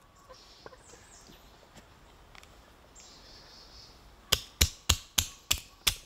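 Faint rustling, then a quick series of sharp wooden knocks starting about four seconds in, roughly three a second: firewood being struck while splitting it into kindling.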